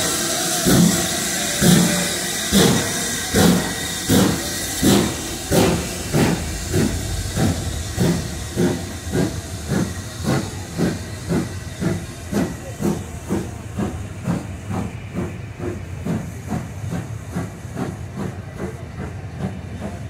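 BR Standard Class 7 Pacific No. 70000 Britannia's two-cylinder exhaust chuffing as it pulls away, the beats starting just under a second apart and quickening to about two a second while growing fainter. A loud hiss of steam runs with the early beats and thins out about two-thirds of the way through.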